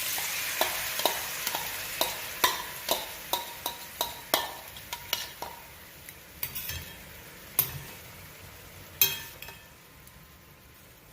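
Chicken sizzling in a 10-inch stainless steel Saladmaster skillet as the teriyaki sauce goes in and is stirred, a spoon clicking against the pan again and again. The sizzle fades steadily over the seconds, and the clicks thin out toward the end.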